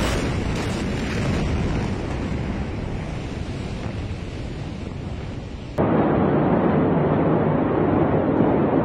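Rumbling, rushing noise and wind on phone microphones filming the aftermath of the Beirut port ammonium nitrate explosion. The noise slowly fades, then jumps suddenly to a louder, steady rumble about six seconds in, where the footage changes to another clip.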